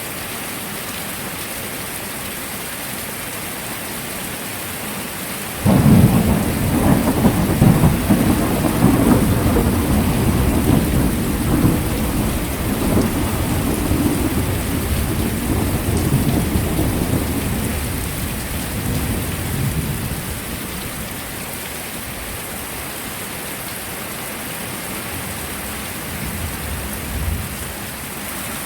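Heavy rain falling steadily, with a sudden thunderclap about six seconds in that rolls on as a long low rumble and fades over the next fifteen seconds or so. A brief, fainter rumble comes near the end.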